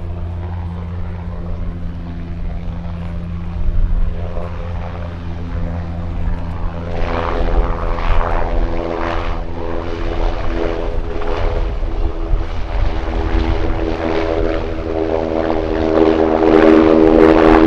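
NH90 helicopter flying a display, its rotors and turbines running with a steady low hum. About seven seconds in, a stack of tones comes up, pulsing about once a second, and the sound grows louder toward the end.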